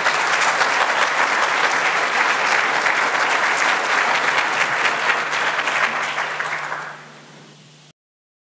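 Audience applauding, dense clapping that fades out about seven seconds in and then cuts off abruptly.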